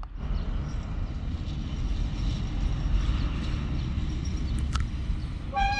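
A moving freight train: a steady low rumble of rolling wagons with faint high squealing tones from the wheels. A click comes near the end, then a louder high steady tone begins.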